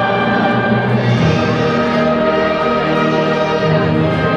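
Orchestral music playing sustained chords that change every second or so.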